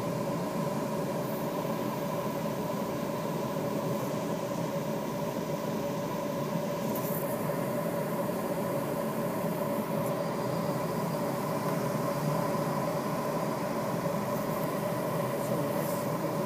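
Steady rush of airflow in the cockpit of a Duo Discus glider in flight with its airbrakes extended, carrying a constant steady hum under the wind noise.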